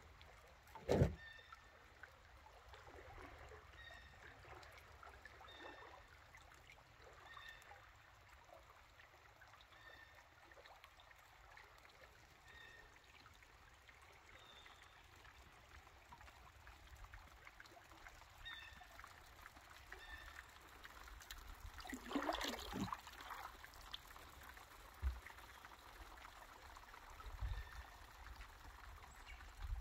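Faint trickling and dripping of creek water around a kayak, with a short louder splash about two-thirds of the way through.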